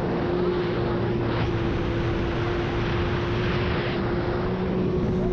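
Jet ski engine running at a steady speed, its held drone mixed with the rush of water.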